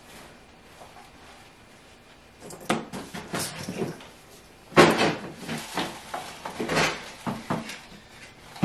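Someone rummaging through a box of loose household items: a run of rustles, clatters and knocks that starts a couple of seconds in, the loudest knock a little past the middle.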